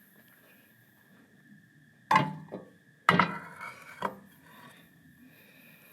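Hard objects knocking and clattering as they are handled and set down: two sharp knocks about a second apart, then a lighter one, each with a brief ring. A faint steady high hum runs underneath.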